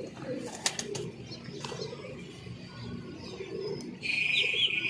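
Birds calling outdoors: pigeons cooing low in the background and small birds giving short high chirps. A single sharp click comes about half a second in, and a louder, high, steady call with a couple of chirps over it starts about four seconds in.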